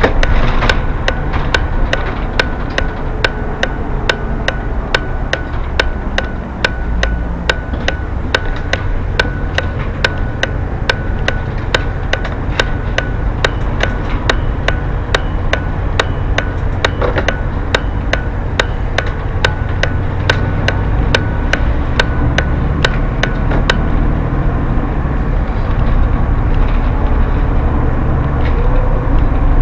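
Bus turn-signal indicator ticking evenly inside the cab over the steady drone of the bus's engine and tyres, while the bus turns at a roundabout. The ticking stops about 24 seconds in, leaving the drone alone.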